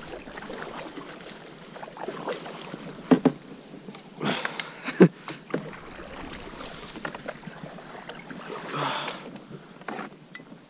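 Kayak paddle strokes through shallow, duckweed-covered marsh water and reeds: splashing and swishing, with several sharp knocks from the paddle, the loudest about five seconds in.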